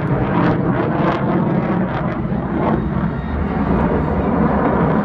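Lockheed Martin F-22 Raptor's twin Pratt & Whitney F119 turbofans running overhead: loud, steady, rumbling jet noise with a rough crackle.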